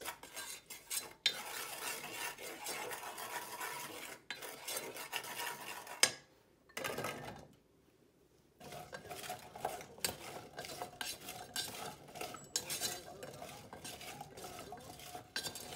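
Wooden spoon stirring and scraping in a pot with sesame oil and seasoning, with a sharp clack about six seconds in. After a short pause, tteokbokki rice cakes are tipped in from a bowl and stirred, clattering against the pot.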